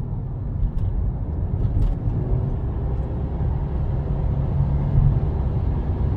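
Inside a moving car: a steady low rumble of road and engine noise, with a faint hum coming in about four seconds in.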